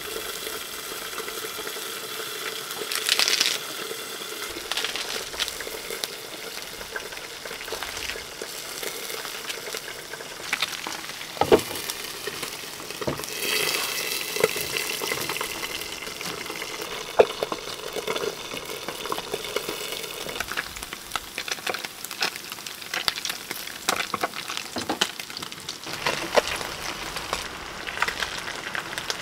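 Leafy greens sizzling as they stir-fry in a steel wok, a steady hiss with scattered sharp clicks and knocks from stirring against the pan.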